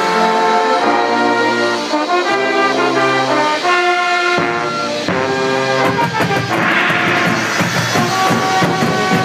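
A marching band plays, its brass section carrying a tune in held chords led by the low brass, with the drumline behind.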